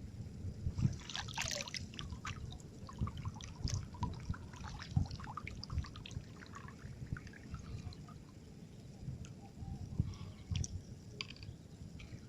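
Small, irregular splashes and drips of water, with scattered sharp clicks among them.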